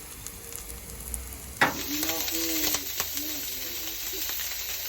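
Bacon frying in a hot pan with a sizzle that jumps suddenly louder about a second and a half in, then holds steady.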